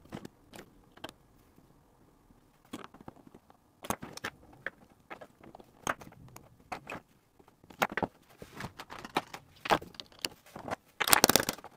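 Handling noise on a workbench: scattered clicks and knocks as a plastic knob-setting tool and a metal guitar effects pedal are picked up and set down, with a louder run of clicks near the end.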